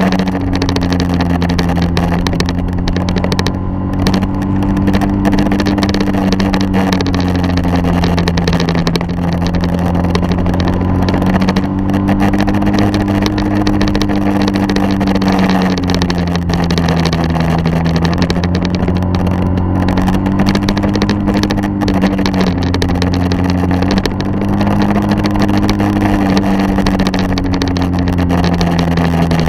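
Engine of a vehicle following the skater, running steadily under rushing wind, its pitch drifting slowly up and down with speed.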